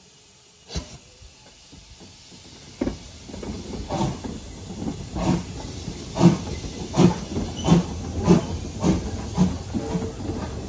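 Steam locomotive pulling away: steam hissing, with exhaust chuffs starting about three seconds in and coming gradually faster as it gets under way. A single sharp knock about a second in.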